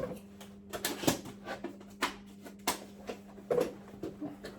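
Scattered light knocks, taps and rustles of materials being handled, irregular and uneven in strength, over a steady low hum.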